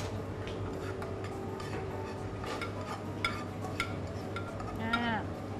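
Light, scattered clinks of a metal utensil against a frying pan as food is scooped out of it into a bowl, over a steady hum. A brief voice sounds near the end.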